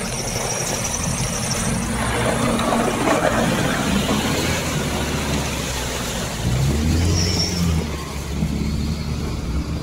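Nissan Patrol Y61's 3.0 turbo-diesel engine pulling under load through deep mud, with tyres spinning and churning the mud. About two-thirds of the way in the engine note grows stronger and begins to rise and fall as it revs.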